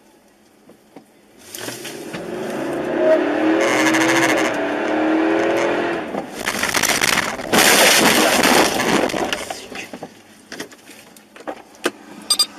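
A car skidding and crashing: engine and tyre noise builds with a wavering squeal, then a few seconds of loud, harsh crash and scrape noise, with scattered sharp clicks near the end.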